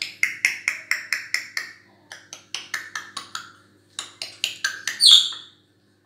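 African grey parrot making a rapid string of sharp clicking sounds, about four a second, in three runs separated by short pauses, with a louder, higher-pitched squawk about five seconds in.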